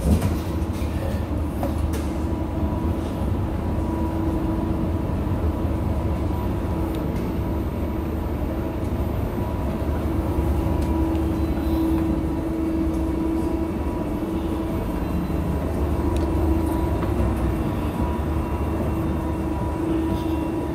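Escalator machinery running: a steady mechanical drone with a low rumble and a constant hum.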